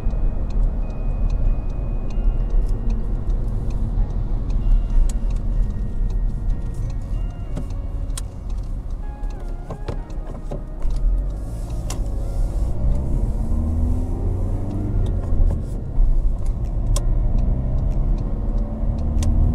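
Inside a VW Golf VII driving on a wet road: steady low engine and road rumble with tyre hiss. In the second half the engine note rises twice as the car speeds up after the turn.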